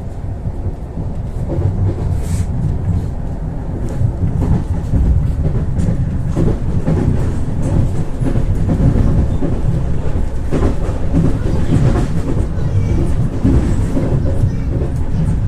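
Ivolga 4.0 electric train running along the track, a steady low rumble with occasional faint clicks, growing louder over the first few seconds as it picks up speed.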